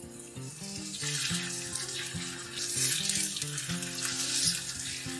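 Egg frying in ghee in a carbon steel pan, sizzling, while a spatula scrapes under it in several strokes to work loose the egg where it is sticking to the pan.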